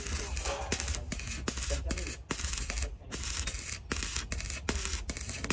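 Repeated scraping strokes, each about half a second to a second long with short breaks between them, over a steady low hum.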